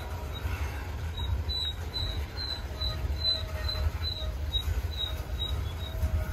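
Freight train cars rolling past with a steady low rumble, and short high squeaks repeating about twice a second.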